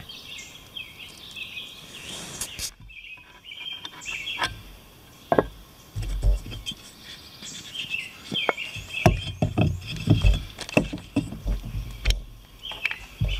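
Small birds chirping. After a brief quiet gap about three seconds in, irregular knocks and clunks follow as a gas stove canister and its stuff sack are pulled out of a nested camp cook pot.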